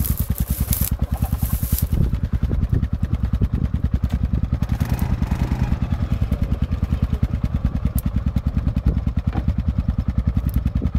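Quad bike engine idling close by: a low, even pulsing at about ten beats a second that holds steady throughout.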